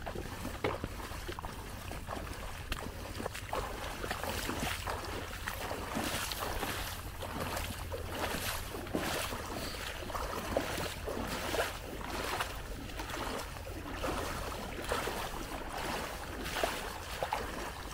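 Footsteps in waders sloshing and splashing through shallow marsh water, a splash roughly every second, over a low wind rumble on the microphone.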